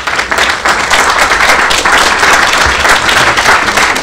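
Audience applauding: the dense, even patter of many hands clapping.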